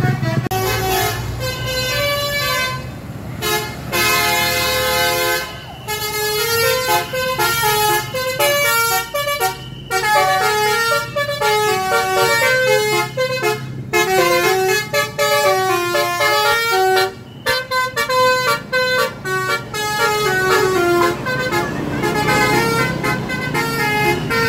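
Bus 'telolet' multi-tone musical horn playing quick tunes of stepped notes, in several runs with short breaks, over the low hum of the bus's running engine.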